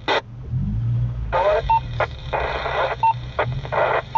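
Two-way radio traffic: bursts of crackling, garbled transmission, each closed by a short beep and a squelch tail. A low engine hum sits underneath.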